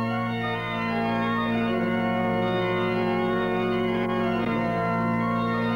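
Sustained organ chords played as dramatic trailer music, held steadily with the notes shifting a couple of times.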